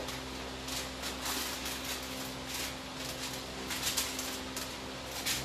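Masking paper and plastic sheeting rustling and crinkling in irregular scratches as a car fender is masked off for painting, over a steady low hum.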